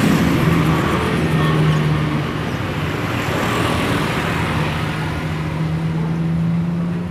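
A motor vehicle engine running with a steady hum, over a wash of road traffic noise.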